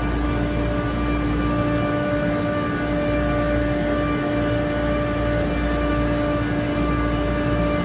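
Trane air-cooled screw chiller running: a loud, steady hum of the screw compressors and condenser fans, with a low rumble and a few held tones that do not change.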